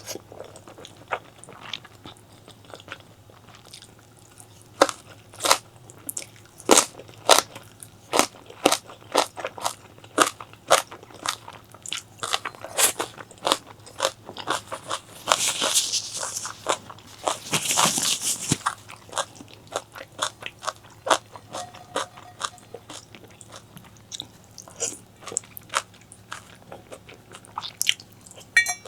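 Close-miked eating: a person biting and chewing crunchy food, with a rapid irregular run of crackly crunches and two longer hissing sounds about halfway through.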